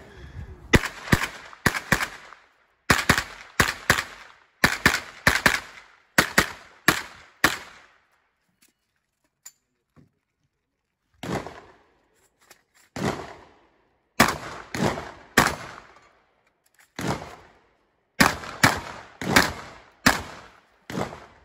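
Rapid gunfire from a pistol-caliber carbine and a shotgun: quick strings of sharp shots, many in close pairs, broken by a pause of about three seconds near the middle.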